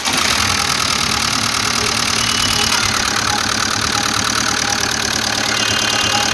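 Skoda Rapid's common-rail diesel engine idling steadily, just started for the first time after a new timing belt and water pump were fitted.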